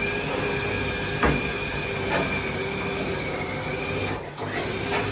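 Electric food chopper's motor running with a steady whine as it grinds food, with a sharp knock about a second in; the motor cuts out briefly just after four seconds and starts again.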